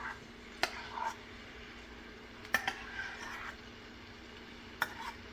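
A spoon knocking and scraping against a cooking pan as cooked vegetables are added and stirred into the masala: a few sharp clinks, one under a second in, two close together about halfway, one near the end, with short scrapes between, over a steady low hum.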